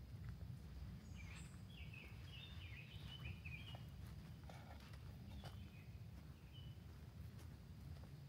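Soft footsteps on a forest trail over a steady low rumble, with a bird singing a quick run of short high chirps in the first few seconds.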